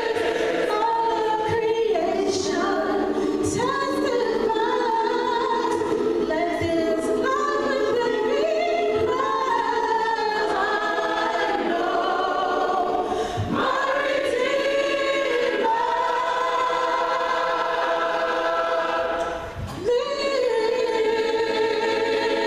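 Large mixed gospel choir singing a cappella in close harmony, moving into long held chords, with a brief break near the end before a final sustained chord.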